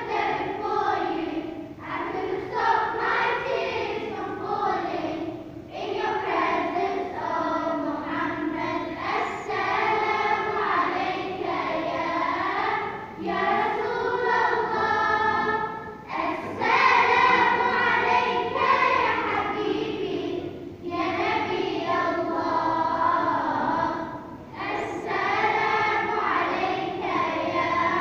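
A group of voices singing together in sustained phrases a few seconds long, with short breaks between them.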